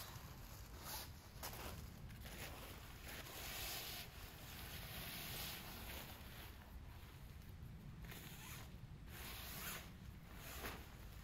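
Rasping, rustling handling noises in repeated strokes, with one longer stretch a few seconds in.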